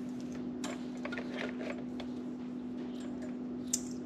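Small scattered clicks and taps of a wire and plastic trim being handled as the phone mount's power wire is fished through an opening beside a motorcycle's handlebar cover, with one sharper click near the end. A steady low hum runs underneath.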